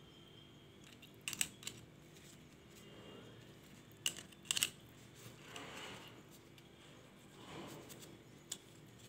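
A few sharp light clicks and taps from handling small laptop parts while the cooling fan is being unscrewed and taken out for dust cleaning, with soft rustling between them: two clusters of clicks, one single click near the end.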